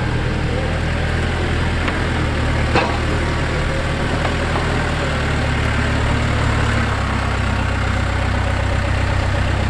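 Backhoe's diesel engine running steadily, with a single sharp knock about three seconds in and a slight shift in the engine note near the end.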